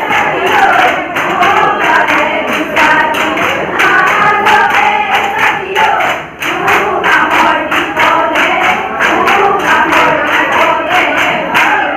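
Women singing a Jeng bihu folk song in chorus through a microphone, over a fast, steady beat of sharp percussive strikes; the music dips briefly about six seconds in.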